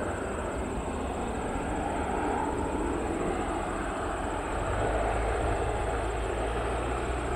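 Cirrus SF-50 Vision Jet's single Williams FJ33 turbofan at takeoff power as the jet lifts off and climbs away: a steady rushing jet noise with a thin high whine over it.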